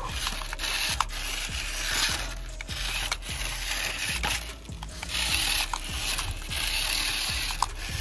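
Homemade remote-control model HMT 5911 tractor driven hard on loose dirt: its small motor and speed gearbox whirring while the tyres scuff and churn the soil. The sound rises and falls in several surges as it speeds up, spins and tips in stunts.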